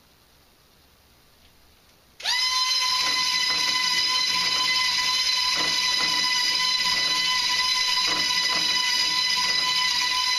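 The coaster car's small battery-driven propeller motor spins up with a quick rising whine about two seconds in, then holds a steady, loud, high-pitched buzzing whine as the air-propelled car runs along the plastic track. Faint clicks come every couple of seconds over the whine.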